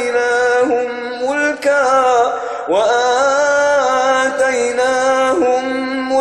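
A man reciting the Quran in the drawn-out, melodic tajweed style, holding long sung notes. A new phrase starts about two and a half seconds in with a rising pitch.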